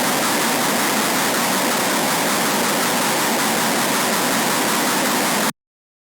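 Harsh noise wall: a loud, unchanging wall of dense static hiss with little bass, cutting off abruptly about five and a half seconds in.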